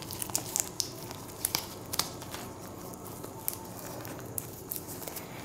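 Scattered small clicks and crinkling rustles of handling off-camera, a few sharp ticks a second over faint room hiss.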